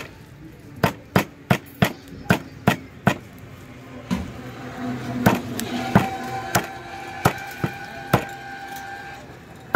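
Heavy curved knife chopping raw chicken into pieces on a wooden log block: a quick run of sharp chops, about three a second, then slower, spaced strikes.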